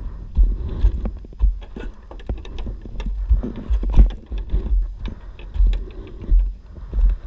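Yamaha Ténéré 700 adventure motorcycle riding over a rough, stony trail: irregular low thumps from the bike jolting, with a busy clatter of sharp clicks and rattles.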